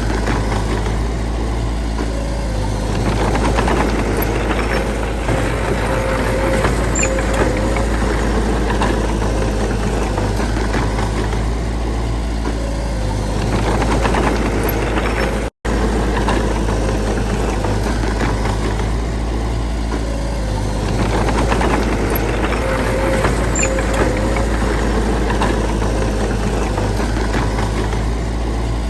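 Heavy diesel earth-moving machinery running steadily, a low rumble whose load rises and eases every few seconds. The sound cuts out for an instant about halfway through.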